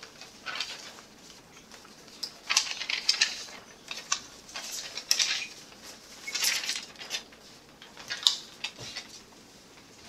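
Sheets of paper rustling in several short, irregular bursts as they are handled and turned over.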